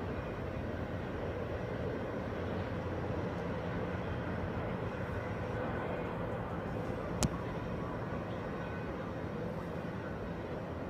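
Steady low rumble of outdoor vehicle traffic, with one sharp click about seven seconds in.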